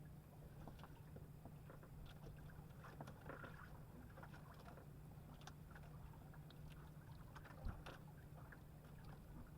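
Near silence: a faint steady low hum with scattered small clicks and knocks, and one slightly louder knock near the end.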